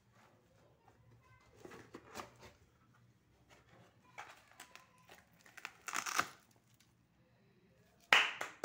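Cardboard box packaging and school items being handled, rustling and crinkling in several short bursts, the loudest near the end.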